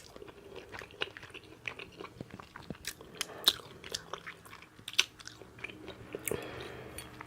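A person chewing food with the mouth open: a run of irregular wet smacks and clicks, with no steady rhythm.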